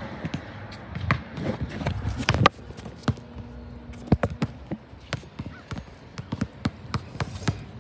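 Basketball bouncing on a hard outdoor court, as a string of sharp, irregularly spaced bounces.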